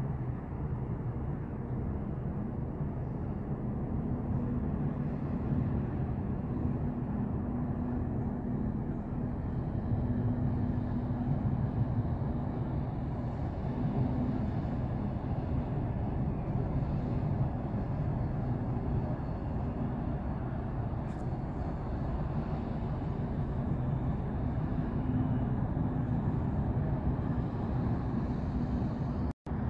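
Low, steady drone of a large tanker's engine and machinery as the ship passes close by. The sound drops out for an instant near the end.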